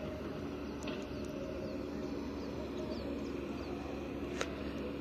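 Distant heavy machinery running, a steady low drone, with a few short bird chirps over it and a sharp click about four seconds in.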